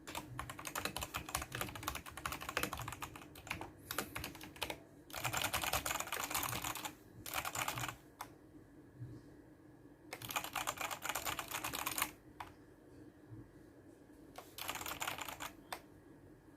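Vortex VX9 Pro full-size mechanical keyboard with Outemu switches being typed on: rapid runs of key clicks in several bursts, separated by short pauses.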